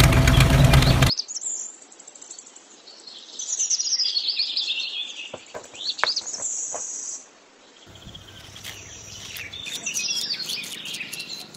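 An engine sound runs for about the first second and cuts off suddenly; then birds chirp and twitter on and off, with a few brief clicks.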